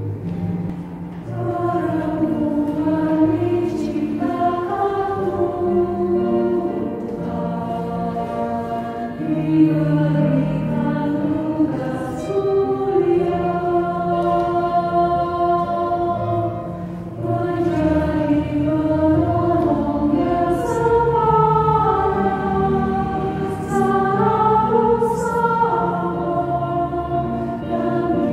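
Women's choir singing an Indonesian church hymn in several parts, entering about a second in, with low held notes sustained beneath the voices.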